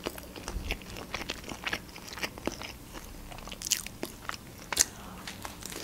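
A person chewing food with the mouth closed: irregular soft wet clicks and crunches, with a sharper crunch near the end.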